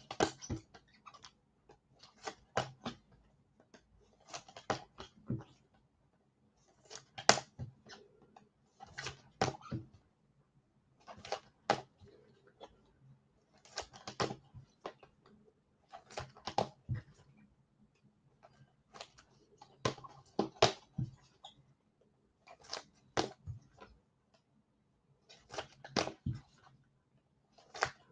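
Clusters of light, sharp clicks and taps, a quick run of several at a time, recurring about every two to three seconds.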